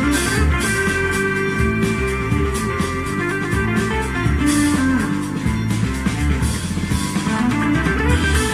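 Recorded music with guitar and drums playing through Tandberg Studio Monitor loudspeakers, driven by a Willsenton R8 valve amplifier.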